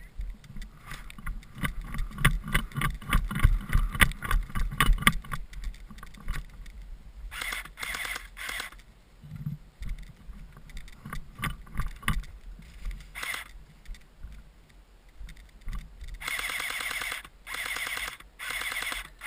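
Rapid footfalls and rustling for the first several seconds as players run off. Then come short bursts of full-auto fire from electric airsoft guns: three quick bursts in the middle, and three longer buzzing bursts near the end.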